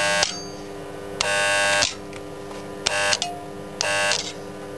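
MIG welder arc buzzing in short stop-start bursts, four in all, each under a second, over a steady hum from the welder. The arc keeps breaking off because the steel is too rusty to weld.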